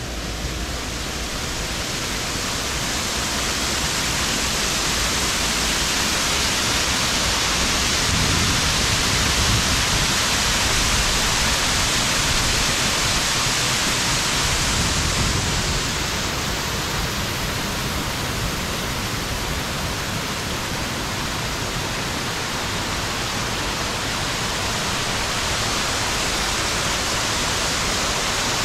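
Waterfall cascading down rock slabs, a loud, steady rush of white water. It grows louder over the first few seconds and drops a little about sixteen seconds in.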